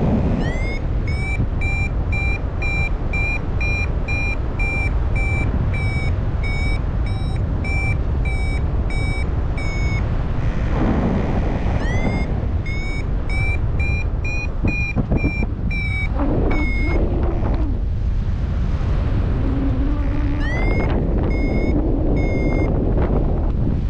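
Flymaster paragliding variometer beeping its climb tone: three runs of short high beeps, about two a second, each run opening with a rising glide in pitch. Under them runs a steady rush of wind noise. The beeping signals that the glider is climbing in lift.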